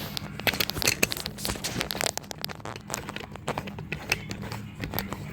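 Plastic packaging crinkling and clicking as it is handled: a quick run of crackles and ticks, busiest in the first couple of seconds and thinning out after, over a faint steady low hum.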